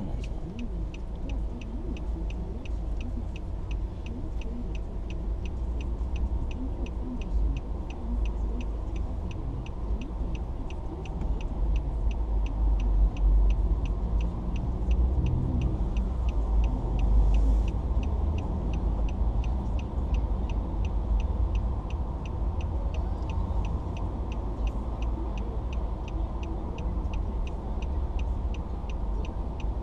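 A car's turn indicator ticking evenly, about three clicks a second, over a low engine idle and the rumble of passing traffic, which swells around the middle.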